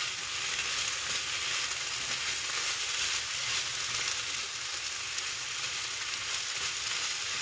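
Diced potato, sweet potato and turkey sausage hash sizzling steadily in a hot pan as a spatula stirs and scrapes through it.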